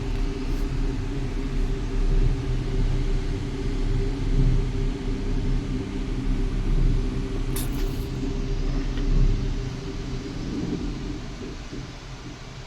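Car engine and road rumble, steady and low, dying down near the end.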